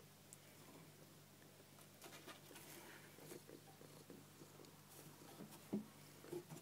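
A cat pawing and nosing at a wire hamster cage: faint scratching and rustling, with one sharp knock near the end, over a low steady hum.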